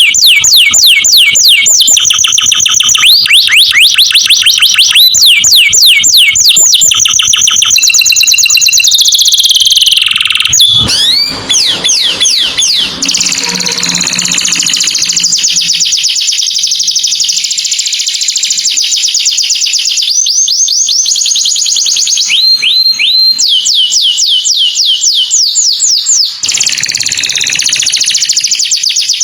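Canary singing: fast trills of repeated high rising notes, switching to a new trill every second or two, with a softer warbled passage about halfway through.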